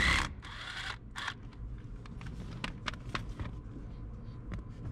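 A cordless power tool runs in two short bursts within the first second, backing out the bolt on the steering shaft's lower joint. After that come scattered light clicks and taps of metal parts being handled.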